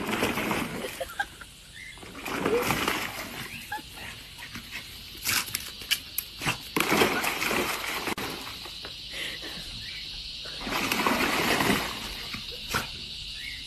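A dog splashing and scrambling in a plastic paddling pool full of soap foam, in irregular bursts, with a few sharp knocks about halfway through.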